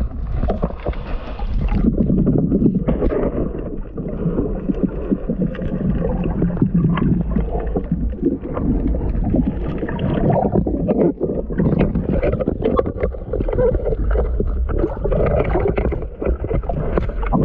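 Muffled underwater rushing and gurgling of water moving past a diver's camera housing, with scattered light clicks and knocks throughout.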